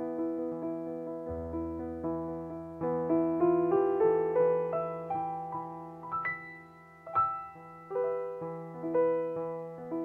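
Digital stage piano improvised by hand: a run of repeated notes over sustained deep bass notes. It swells to its loudest a few seconds in, then thins out with a few sharp, struck accents.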